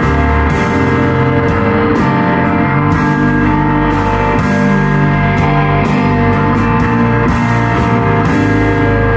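A live rock band playing loudly: electric guitars sustaining chords over a drum kit, with cymbal and drum hits throughout.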